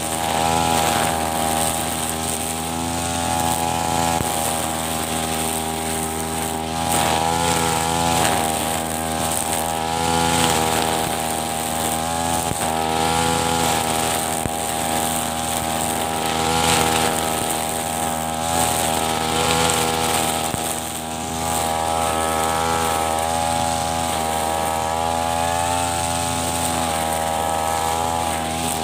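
Backpack brush cutter's small petrol engine running at high speed while its string-trimmer head cuts grass. The engine note wavers a little as the throttle and load change.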